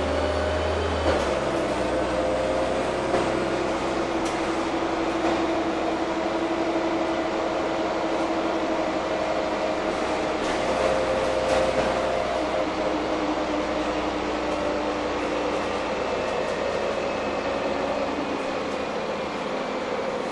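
Cabin noise of a Heuliez GX317 LPG city bus under way: steady engine and drivetrain running with a whine that slowly rises and falls. A few short clicks and knocks come through now and then.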